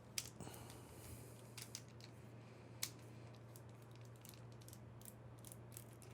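Faint, scattered small metal clicks from a screwdriver working the retaining screw down the shackle hole of an Abus 72/40 padlock, over a low steady hum.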